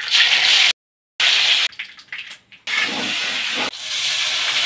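Hot oil sizzling loudly as a marinated chicken piece is lowered into a kadai. The sound drops out abruptly for about half a second near the one-second mark. Later, water poured into a wok of frying onions hits the hot oil with a long, steady hiss.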